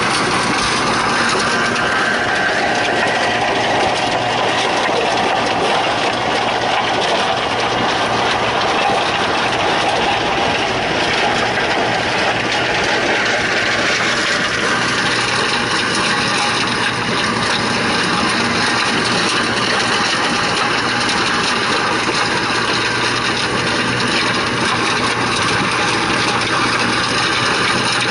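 Tractor engine running steadily under load, driving a rear-mounted stone crusher whose rotor breaks up stones in the soil.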